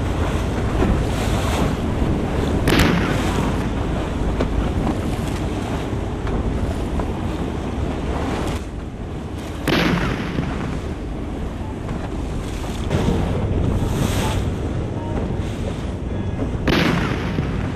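Wind buffeting the microphone: a loud, steady rushing noise, heaviest in the low end. Four brief louder surges come about three, ten, fourteen and seventeen seconds in.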